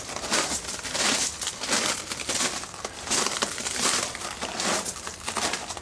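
Footsteps crunching on loose ground at a steady walking pace, roughly one step every two-thirds of a second.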